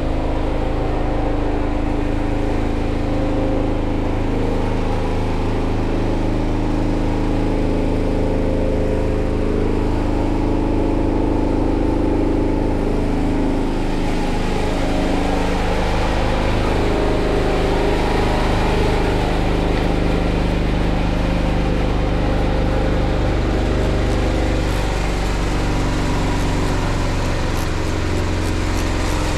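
An engine running steadily without a break, its tone shifting about halfway through.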